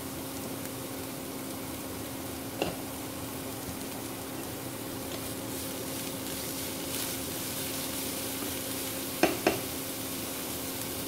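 Shredded cabbage sizzling steadily in oil in a nonstick frying pan as it is stirred with a spatula, with a sharp knock about two and a half seconds in and two quick knocks near the end.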